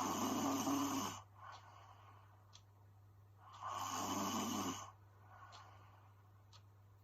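A woman snoring in her sleep: two snores about three and a half seconds apart, each lasting about a second, with a fainter breath just after the first.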